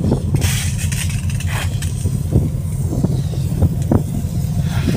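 Wind buffeting the microphone on an open ship's deck, a loud steady low rumble, with the hiss of a deck hose spraying water onto the steel deck now and then.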